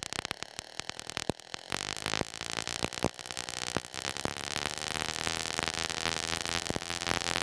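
Small Tesla coil discharging into the air, its top terminal throwing thin spark streamers off a bent wire. It starts as an irregular crackle of separate snaps, and about two seconds in becomes a dense, steady buzzing crackle that slowly grows louder.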